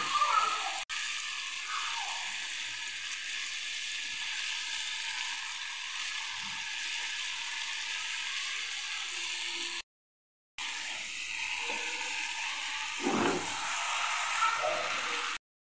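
Chicken pieces sizzling in a frying pan, a steady hiss, with a few brief louder handling sounds near the start and near the end.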